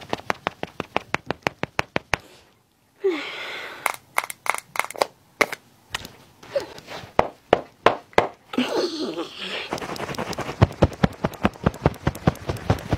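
Quick, repeated pats of a makeup sponge and powder puff against the skin of the face, about seven sharp little taps a second. The patting stops briefly about two and a half seconds in and picks up again, densest near the end.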